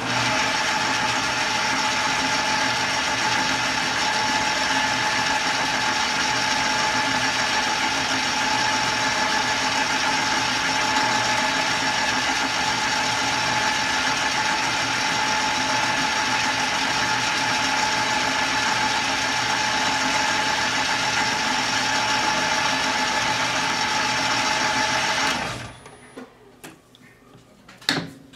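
Small metal lathe running steadily while a twist drill bores into the centre of a spinning brass crown-wheel blank. The lathe cuts off near the end, followed by a few light clicks.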